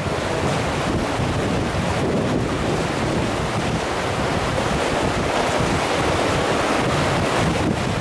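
River rapids rushing steadily, whitewater pouring over rocks in a continuous loud roar of noise.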